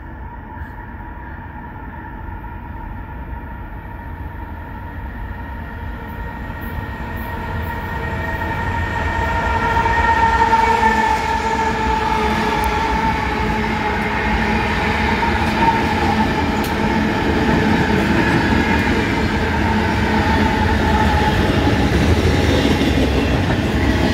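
A lash-up of eight diesel freight locomotives approaching and passing close by. It grows steadily louder for about ten seconds, with a steady whine that dips slightly in pitch as the units go past. Near the end comes the rumble and wheel noise of double-stacked container cars rolling by.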